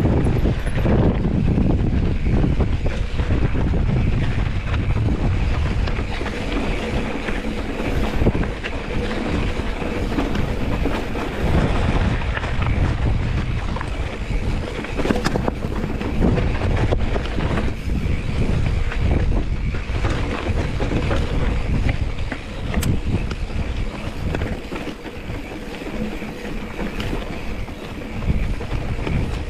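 Wind buffeting the microphone: a dense, rushing rumble that swells and dips unevenly.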